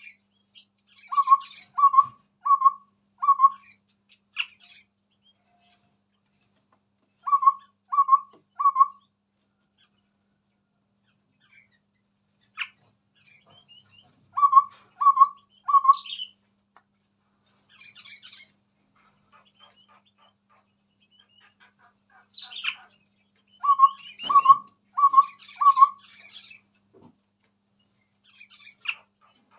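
Chestnut-rumped babbler singing: bouts of three or four short, low whistled notes, repeated every several seconds, with higher chirps in between.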